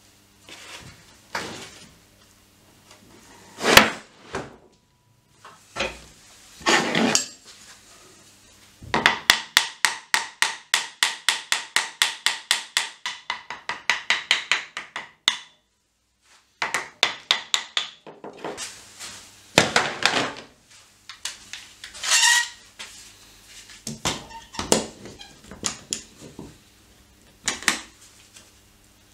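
A hammer tapping the ends of a stack of wood strips to knock them into line: a fast, even run of about five light taps a second for some six seconds, each with a slight ring. Around it come single knocks of the strips against the workbench and the handling of a bar clamp.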